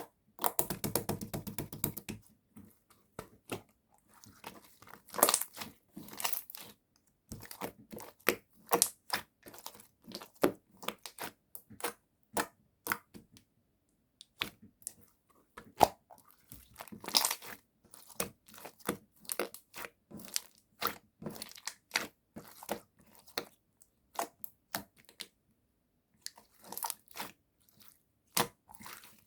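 Translucent purple jelly slime being squished and stretched by hand, giving irregular sticky clicks and crackles with a few short pauses.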